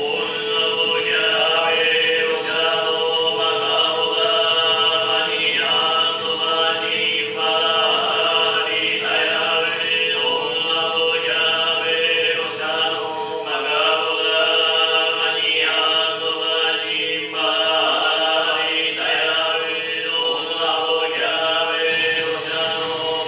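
Chanting voices over a steady held drone, in a repeating phrase that comes round a little more than once a second.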